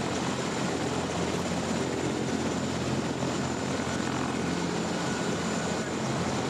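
A steady low mechanical drone with an even hum, unchanging throughout.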